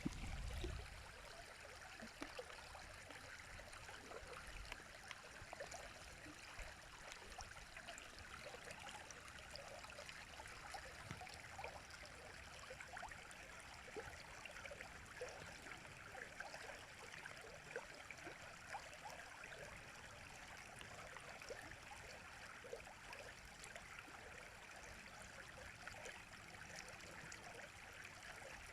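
River water running steadily: a soft, even rush dotted with many small splashes and gurgles. A brief low thump in the first second.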